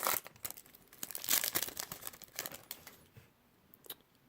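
Baseball card pack's foil wrapper crinkling as it is torn open and peeled off the cards, in crackly bursts that die down after about two and a half seconds.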